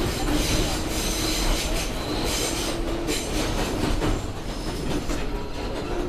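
R142A New York subway car running along the track, with a steady running noise and hum, and the wheels squealing high for the first couple of seconds.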